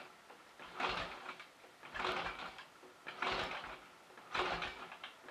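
1930 Royal Enfield Model K 1000 cc V-twin being turned over repeatedly to start it, about one stroke a second, each stroke a short rushing scrape. The engine does not fire; the owner suspects the ignition timing.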